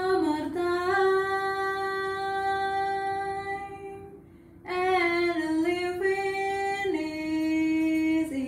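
A woman singing long held notes in a small tiled bathroom: one note held for several seconds and fading, a short break, then a second phrase that steps down in pitch.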